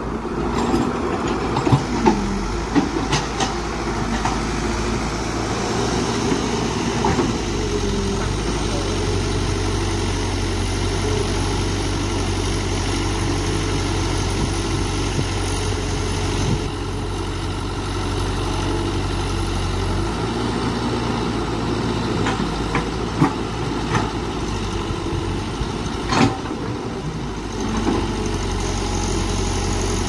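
Caterpillar hydraulic excavator's diesel engine running steadily under digging work, its low note shifting a couple of times. Now and then a sharp knock comes as the steel bucket works through rocky soil.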